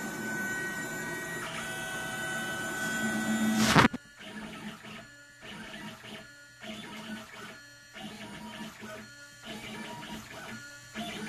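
Stepper motors of a DIY CNC pen plotter whining as the pen carriage moves. The first run is long and steady, grows louder and stops abruptly about four seconds in. After that come short stop-start moves, roughly one or two a second, as the pen draws short strokes.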